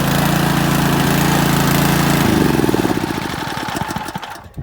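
Small gas engine of an irrigation wheel-line mover running steadily, then shutting off about two seconds in, its note sliding down as it winds to a stop.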